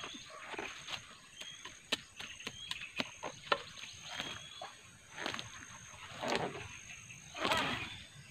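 Rustling and crackling of taro leaves and stalks being handled and trimmed by hand, with many sharp snaps and clicks scattered throughout and louder rustling bursts in the second half.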